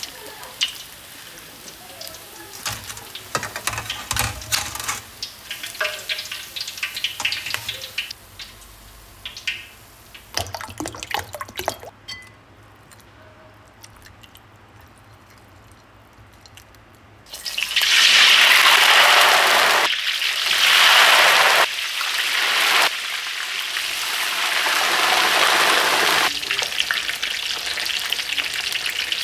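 Pork belly for lechon kawali deep-frying in a wok of hot oil, a loud sizzling and spattering that starts suddenly a little past halfway. Before it come quieter clicks and knocks of tongs and a ladle against the wok, and wet handling of the meat.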